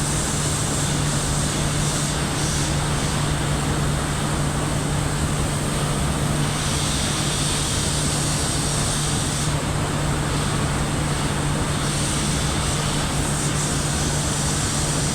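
Industrial boiler furnace machinery running: a loud, steady roar with a constant low hum and a hiss on top that swells and eases slightly.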